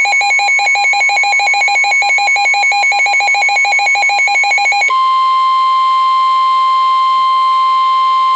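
NOAA Weather Radio tornado-warning alert. A fast, buzzy electronic beeping runs over a steady alarm tone, then stops about five seconds in, leaving the steady 1050 Hz warning alarm tone sounding alone.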